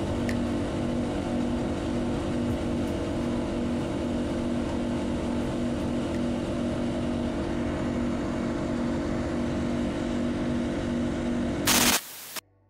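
Motorboat engine running steadily at speed, with rushing water and wind. Near the end there is a short loud burst of noise, and then the engine sound cuts off suddenly.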